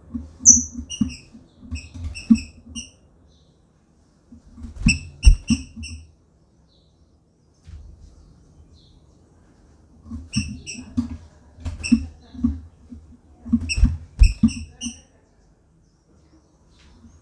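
A female green-winged saltator (trinca-ferro) calling in short high chirps, in about five quick clusters with pauses between, together with dull knocks of the bird hopping on the wooden cage perches.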